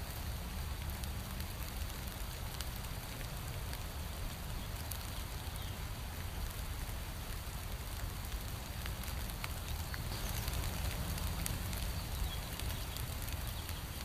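Steady rain falling on leafy bushes, with scattered sharp drops ticking over an even hiss and a steady low rumble underneath.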